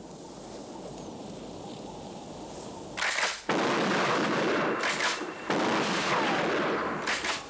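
Film sound effect: a low hiss, then about three seconds in a sudden loud rush of noise that keeps on, with sharper blast-like bursts at about three, five and seven seconds.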